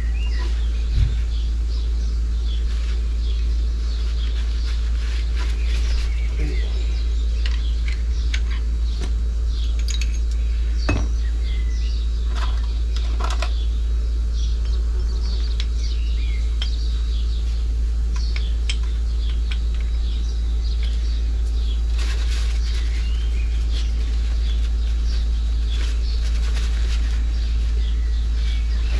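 Metal clinks and taps of a motorcycle brake caliper and pads being handled while they are refitted, over a steady low rumble, with small birds chirping throughout.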